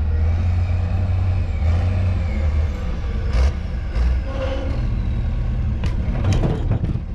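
Heavy diesel equipment engine running with a steady low rumble, joined by several sharp clanks and knocks from about three seconds in, most of them near the end.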